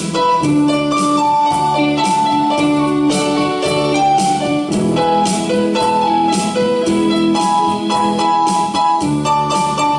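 Rock music: a keyboard plays held notes over a steady drum beat, with no singing.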